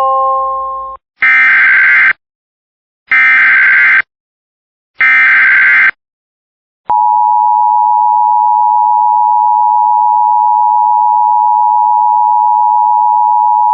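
Emergency Alert System opening: three roughly one-second bursts of SAME digital header data about two seconds apart, then the EAS two-tone attention signal, starting about seven seconds in and holding steady. This marks the start of a flash flood warning.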